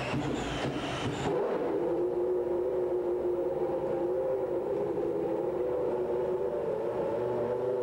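Williams FW15C Formula 1 car's Renault V10 engine running at a steady, unchanging pitch, with a short spell of noise in the first second or so before the engine note settles.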